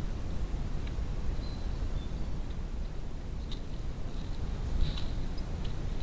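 Steady low outdoor rumble. About three and a half seconds in comes a quick run of very high, thin squeaks, with one more a moment later, and a few faint clicks.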